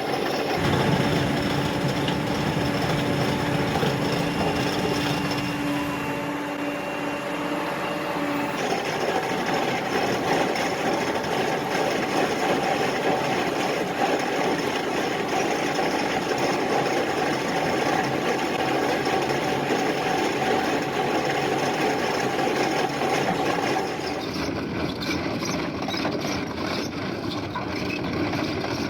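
Excavator running with a KEMROC EK chain cutter attachment: a steady, dense mechanical noise with a held whine, changing abruptly twice.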